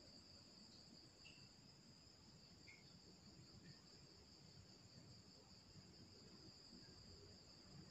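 Near silence with a faint, steady high trill of crickets, and a few faint light ticks here and there.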